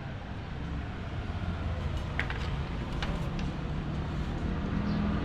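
KTM Duke 200 single-cylinder engine running with a steady low rumble, with a few sharp clicks two to three seconds in. The owner takes the noise for a worn cam chain, since a new cam chain adjuster has not cured it.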